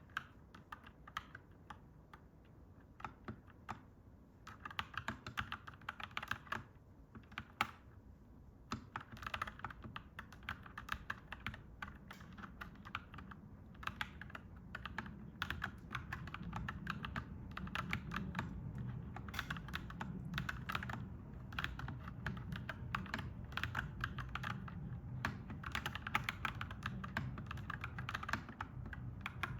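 Typing on a clacky mechanical keyboard: quick, uneven runs of keystrokes with short pauses between bursts. A low rumble swells in underneath from about halfway through.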